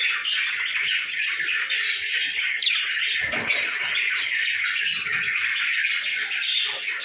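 Lovebirds chattering, a dense, continuous mass of high, shrill chirps and squawks, with one quick falling note a little before the middle.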